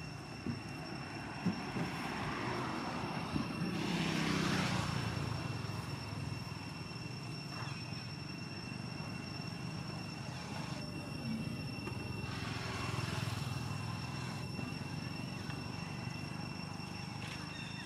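Distant motor noise of passing traffic, swelling and fading twice, about four and thirteen seconds in, over a steady high-pitched whine. A few light knocks sound in the first three seconds.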